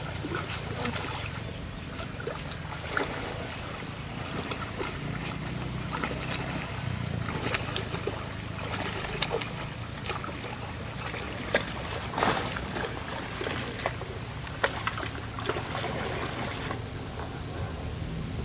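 Water buffaloes wading and wallowing in a muddy pond: water sloshing and splashing, with scattered short sharp splashes and drips over a steady low rumble.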